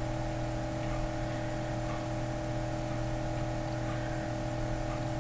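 Steady background hum with a constant hiss, several fixed tones held throughout with no change.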